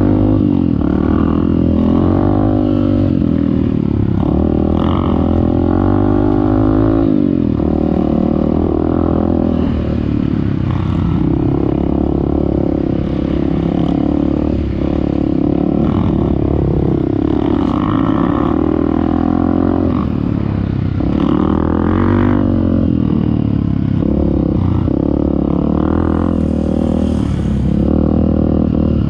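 Off-road motorcycle engine revving up and down over and over as it is ridden hard through soft sand, with rattling from the bike.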